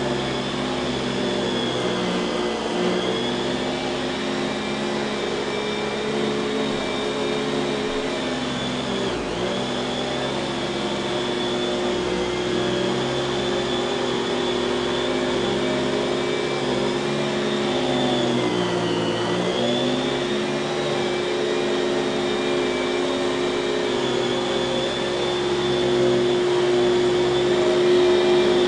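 A 1995 Kenmore 116.2561290 canister vacuum cleaner running on its dual-stage Lamb motor: a steady whine whose pitch sags briefly about nine and nineteen seconds in.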